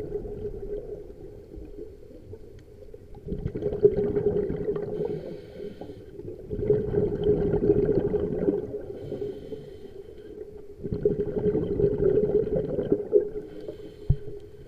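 Scuba diver breathing through a regulator underwater. About three breaths: each is a quieter inhale followed by a longer burst of exhaled bubbles, rumbling and gurgling.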